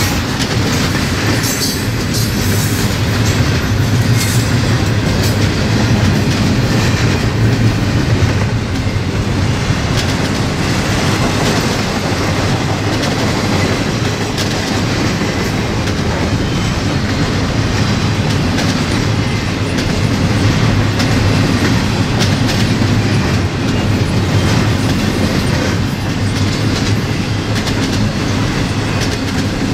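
A double-stack intermodal container train rolling past on its well cars, with a loud, steady rumble of steel wheels on rail and a clickety-clack of the wheels passing over the track.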